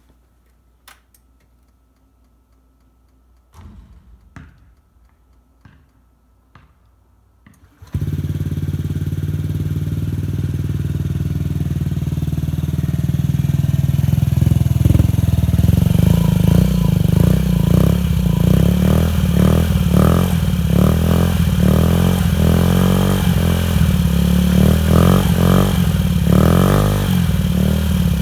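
Honda Ruckus 50cc four-stroke single-cylinder scooter engine starting abruptly after a few quiet clicks. It then runs, with repeated quick throttle blips revving it up and down.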